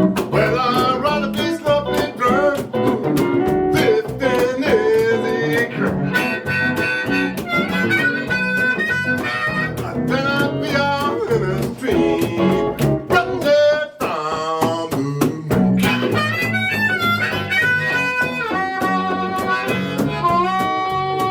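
Live blues band music: a harmonica playing long bending and held notes over a rhythmic guitar accompaniment.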